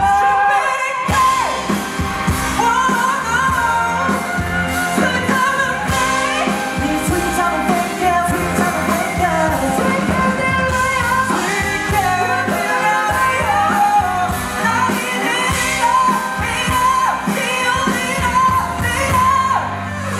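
A rock band playing live, a male voice singing over electric guitars and a steady beat.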